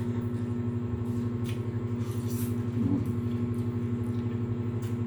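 A steady low mechanical hum with a fast flutter, running throughout, with a few faint short clicks over it.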